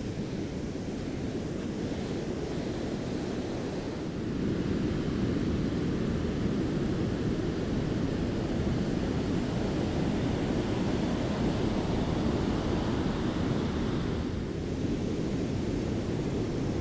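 Ocean surf breaking on a beach: a steady, low rumble of waves, growing louder about four seconds in.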